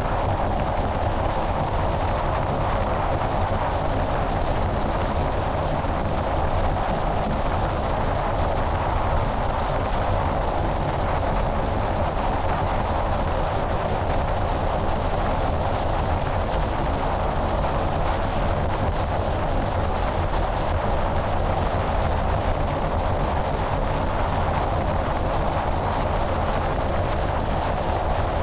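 Steady wind rushing and buffeting over the microphone of a camera mounted on the hood of a moving car, with the low drone of tyres and engine underneath.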